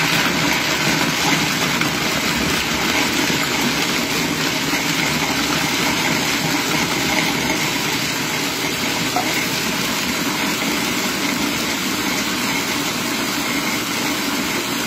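Loud, steady motor and chopping noise of a stainless-steel food processor grinding raw walnuts and pitted dates into a crust mix; the motor starts suddenly right at the beginning.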